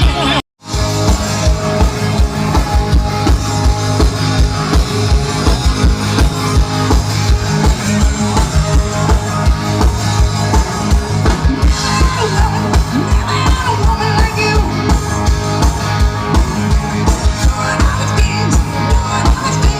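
Live rock band playing loud, with a steady drum-kit beat, bass and electric guitar, and some singing. The sound cuts out for about half a second just after the start.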